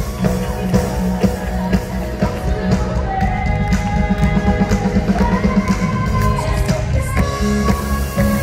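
Amplified live band music filling the hall: a singer holding long notes over a pulsing bass and band accompaniment.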